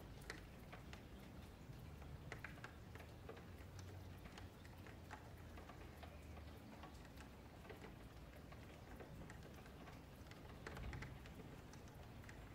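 Near silence with faint, irregularly spaced clicks of a computer mouse and keyboard, over a low steady hum.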